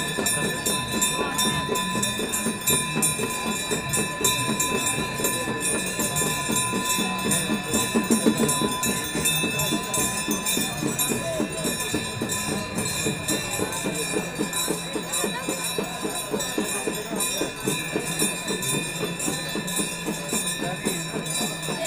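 Many brass aarti bells ringing continuously and rapidly, with steady ringing tones, over devotional music.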